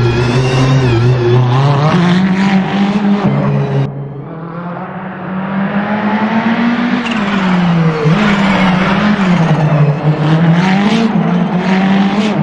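Ferrari 488 GT3's twin-turbo V8 racing engine pulling hard, its pitch rising and dropping through repeated gear changes. About four seconds in it comes off the throttle and goes quieter, then builds back up under acceleration through several more shifts.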